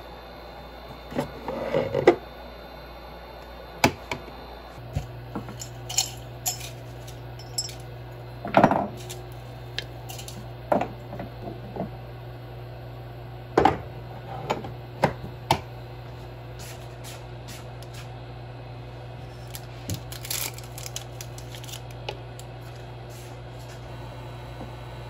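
Kitchen handling sounds: a wooden cabinet door flipped open, then jars and a pot set down and moved in a string of separate knocks and clinks. A low steady hum sets in about five seconds in.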